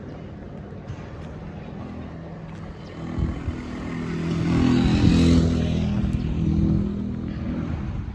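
A motor vehicle's engine drawing near and passing close, loudest about five seconds in, then fading away. A low steady traffic rumble runs beneath it.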